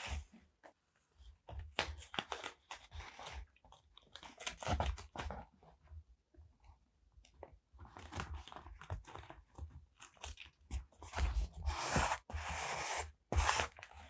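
Paper and stickers handled close to the microphone: irregular crinkling, rustling and small taps, with a longer scratchy stretch near the end.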